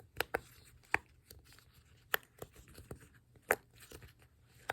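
A pop-it fidget toy's bubbles being pushed through, giving about nine short, sharp pops at an uneven pace.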